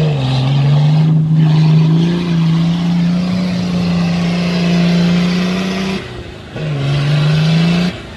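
Modified 4x4 SUV engine revving hard and held at high revs while the truck climbs out of a muddy water pit. About six seconds in the driver briefly lifts off, then revs again. The engine note drops away near the end.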